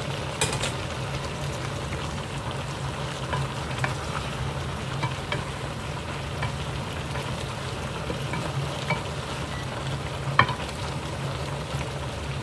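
Wooden spatula stirring and turning vegetables in a pot of simmering coconut-milk stew, with scattered sharp knocks of the spatula against the pan, the loudest about ten seconds in. A steady sizzle and a low hum run underneath.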